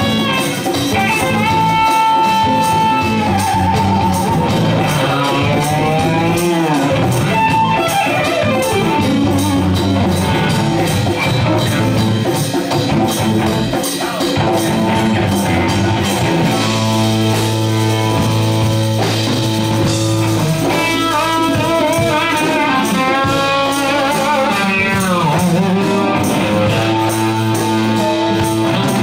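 Rock band playing an instrumental: an electric guitar lead over drums and bass, with held notes and several swooping glides of pitch up and down.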